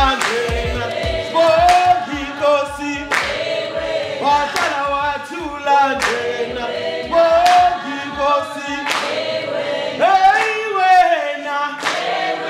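A group of voices singing a song together. A steady low beat runs under the singing in the first half, then drops out, leaving the voices unaccompanied.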